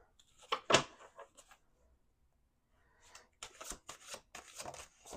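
A deck of tarot cards being shuffled by hand: a quick run of card snaps and slaps, the loudest about three quarters of a second in, then another flurry of them from about three seconds in.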